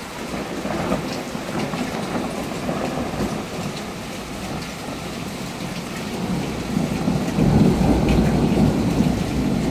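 Steady downpour of rain, with a low rolling rumble of thunder that swells up about two-thirds of the way through and is loudest near the end.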